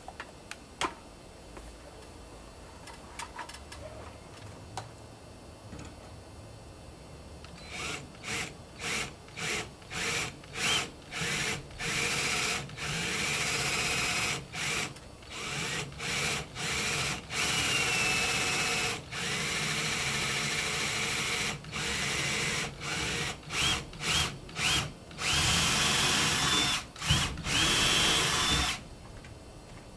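Cordless drill run in many short trigger bursts beginning about eight seconds in, then in longer runs of a second or two with a rising whine. It stops shortly before the end.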